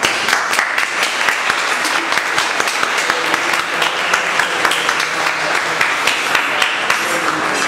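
An audience applauding: many people clapping together in a steady, dense patter.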